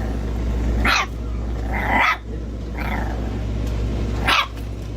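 Dog barking four times, short separate barks over a steady low hum.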